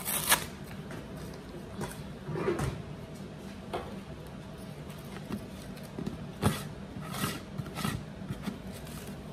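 Handling noises: a paper sack set aside and a plastic lid fitted onto a plastic food-storage bucket. There are scattered knocks and clicks of plastic, the sharpest one just after the start and another about six and a half seconds in.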